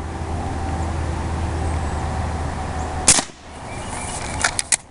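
Umarex Legends Cowboy lever-action CO2 BB rifle firing once about three seconds in, a single sharp pop, followed near the end by a few quick metallic clicks as the lever action is worked. A steady low hum runs underneath before the shot.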